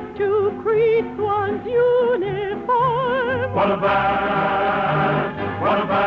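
Studio orchestra with a singer holding and gliding between notes with wide vibrato over a steady, pulsing bass. A fuller orchestral chord swells in about three and a half seconds in. The sound has the narrow, dull top of an old 1950s radio broadcast recording.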